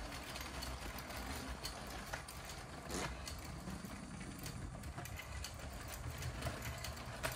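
Motorised LEGO passenger train running over plastic TrixBrix switch track: a steady low rumble of motor and wheels, with occasional clicks as the wheels cross the switch joints.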